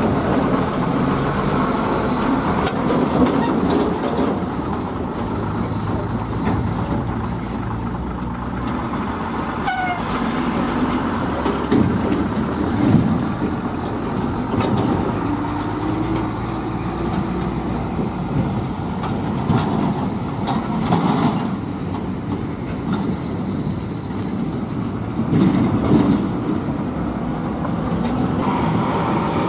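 Diesel engine of a heavy multi-axle bulk cement tanker truck running as the truck crawls over a rough dirt track, a steady low drone with small swells.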